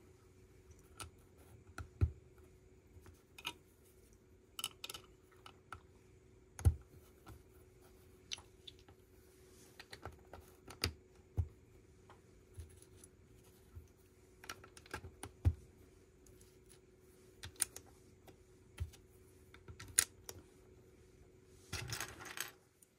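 Plastic Lego bricks clicking and tapping as they are picked up, handled and pressed together, in irregular sharp clicks every second or so, with a longer clatter of pieces near the end. A faint steady hum runs underneath.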